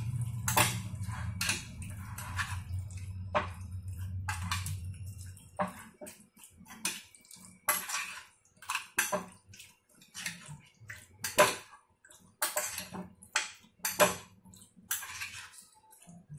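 Chicken pieces being squeezed and turned by hand in a yogurt-and-spice marinade in a clear box: irregular wet squelches and taps of the hand against the box. A low hum under the first five seconds stops suddenly.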